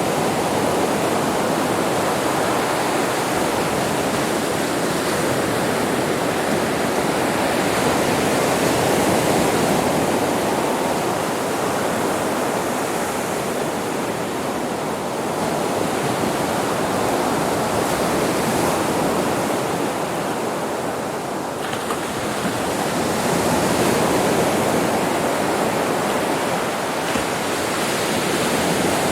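Sea waves on a beach: a continuous wash of surf that swells and eases slowly every several seconds.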